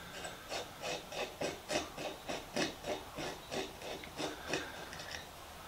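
A screwdriver grinding in a rusted, stuck screw on an old spirit level. It makes short scraping creaks at about three strokes a second as the blade is worked back and forth. The strokes stop just before the end.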